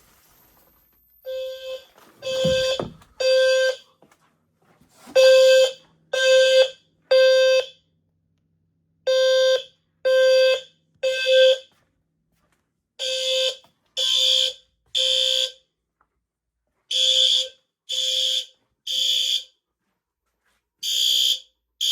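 Fire alarm horn sounding the temporal-three evacuation pattern: three half-second buzzy tones about a second apart, then a pause, the group repeating about every four seconds.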